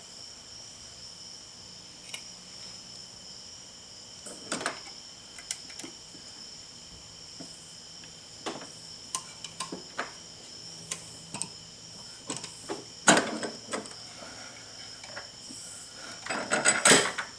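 Steel socket and bench vise clicking and clinking as they are handled while a wiper-arm bushing is pressed into its hole: scattered short metallic clicks, with a louder cluster of clanks near the end. A faint steady high whine runs underneath.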